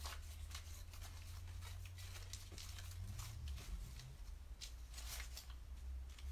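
Faint handling noises: irregular light rustles and scratches, over a low steady hum.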